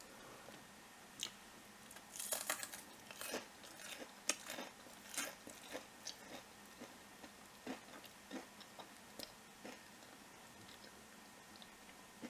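A person chewing a piece of battered vegan tempura with the mouth close to the microphone: irregular crisp crunches, thickest in the first few seconds and thinning out towards the end.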